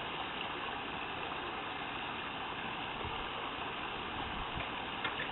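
Steady, even watery hiss of a swimming pool, with water moving around the pool edge.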